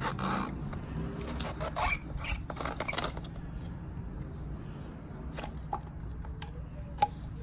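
Plastic end cap of a Frankford Arsenal rotary tumbler drum being unscrewed by hand: scattered clicks and small squeaks from the lid and its threads, thickest in the first three seconds, then a few single clicks.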